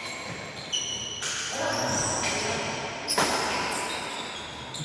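Badminton rally: rackets striking the shuttlecock with sharp, ringing hits, the loudest about a second in and again about three seconds in, with players' footsteps on the hard court floor.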